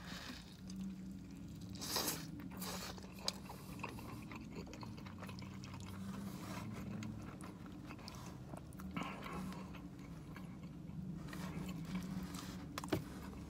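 Close-up eating sounds: biting into and chewing a slice of BBQ chicken pizza, with a few short crunches and mouth clicks, over a steady low hum.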